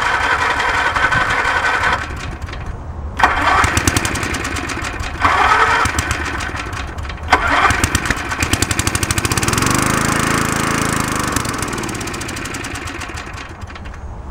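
A lawn mower engine being cranked by its electric starter, which is powered by jumper cables from a tractor. The engine catches in short bursts, sputters, and runs rough before dying away. The owner blames carburetor problems.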